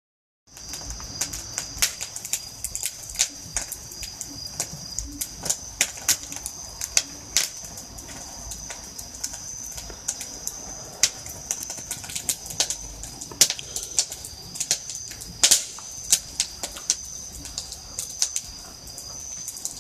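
Charcoal fire crackling, with irregular sharp pops and snaps, a few louder ones, over a steady high-pitched hum.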